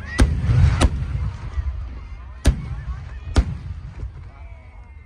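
Fireworks booming: four sharp bangs over a low rumble, two in the first second and two more about two and a half and three and a half seconds in.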